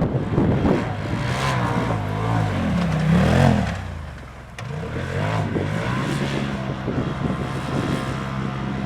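Polaris RZR side-by-side engine revving up and down in snow, easing off briefly about four seconds in, then running at a steady pitch.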